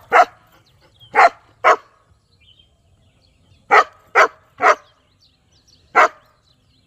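A dog barking: seven short, sharp barks in three groups, the second a quick run of three, with a lone bark near the end.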